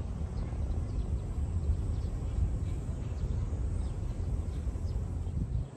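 Wind buffeting the microphone, a rough low rumble that drops away suddenly near the end, with faint short bird chirps over it.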